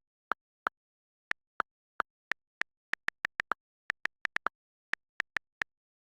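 A series of about twenty short, sharp clicks at an uneven pace, sometimes in quick runs of three or four, with dead silence between them.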